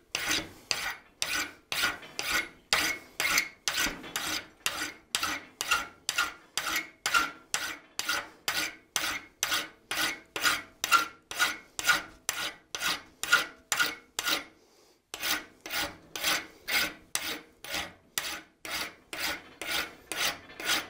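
Half-round hand file rasping on the head of a forged thumb screw clamped in a vise, in steady strokes about two a second, filing a shallow scoop into the surface. The filing pauses briefly about two-thirds of the way through, then picks up again at the same pace.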